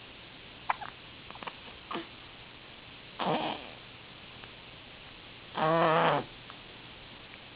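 Three small hiccups in the first two seconds, then two short throaty vocal sounds, the second longer and louder, about three and five and a half seconds in.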